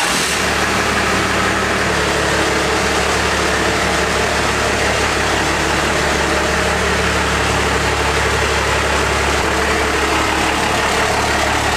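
Dodge Ram's Cummins turbo-diesel engine running steadily at idle while the truck creeps forward.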